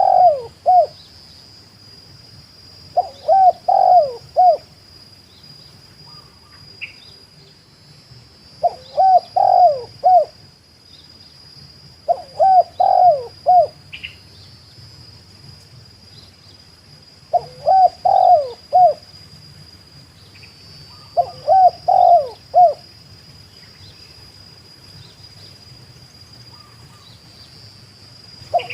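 Spotted dove (tekukur) cooing: short phrases of four or five low coos, repeated every four seconds or so, six times.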